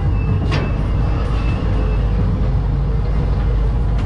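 Ghost train car rolling along its steel track, a steady low rumble, with one sharp click about half a second in.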